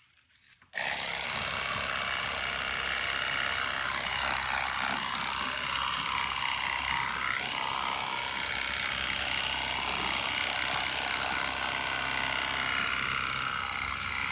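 Battery-powered portable pressure washer switching on about a second in and running steadily, its motor and pump making a loud buzzing whine whose high tone wavers slightly.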